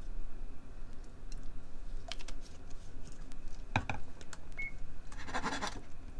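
Kitchen noises around a saucepan on an induction cooktop: a steady low hum with a few faint clicks, two sharp knocks a little past halfway, a short high beep just after, and a brief hissing rustle near the end.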